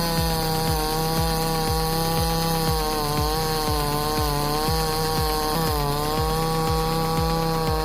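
Two-stroke gasoline chainsaw running at full throttle, cutting through a log, its pitch dipping briefly a little past halfway as the chain loads up. Background music with a steady beat, about two beats a second, runs underneath.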